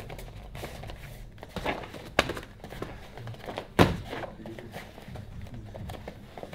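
Muay thai strikes landing on a gloved, shin-guarded opponent: three thuds, the loudest a little under four seconds in, as a roundhouse kick lands.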